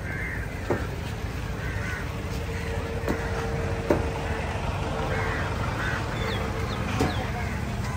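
Four irregular sharp knocks of a knife chopping fish on a block, the loudest about four seconds in, with crows cawing in the background.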